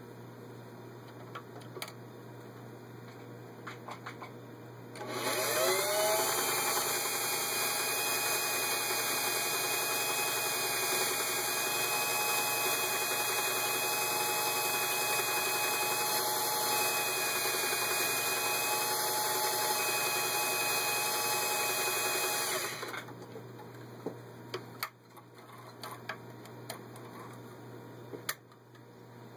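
Singer 503A sewing machine stitching with the ribbon fashion cam fitted: the motor spins up with a rising whine about five seconds in, runs steadily for about eighteen seconds, then stops. Small clicks of handling the machine and fabric come before and after the run.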